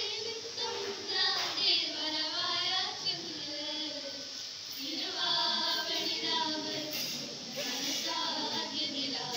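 Three girls singing a song together into a hand-held microphone, amplified over a PA loudspeaker.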